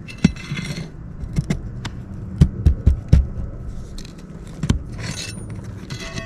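Hand tools working nails out of asphalt roof shingles: a run of sharp metal knocks and clicks, four in quick succession about two and a half seconds in, with metal scraping on the shingles between them.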